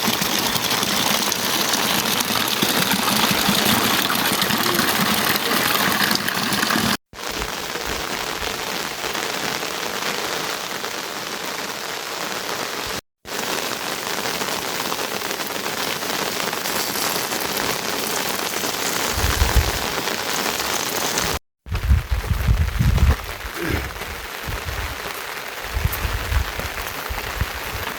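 Rain falling steadily: an even hiss of rain on surfaces, broken off abruptly three times. Bursts of low rumble come and go in the last several seconds.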